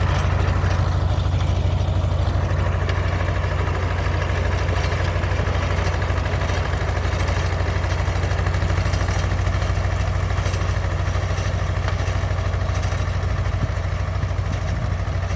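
T-25 tractor's two-cylinder air-cooled diesel engine running steadily with a low, even hum.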